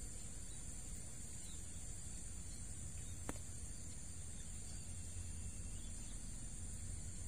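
Steady high drone of insects over a low, even rumble of the fast-flowing flooded river, with a single sharp click about three seconds in.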